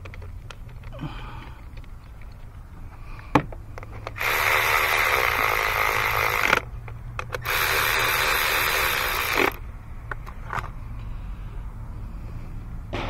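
Cordless electric ratchet running in two bursts of about two seconds each, spinning down an ignition coil hold-down bolt. A sharp click comes a little before the first burst.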